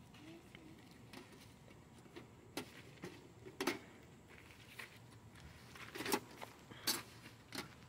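Several sharp clicks and knocks, irregularly spaced, as the folding legs of an Ooni Fyra pizza oven are worked and the oven is shifted about on a wooden table.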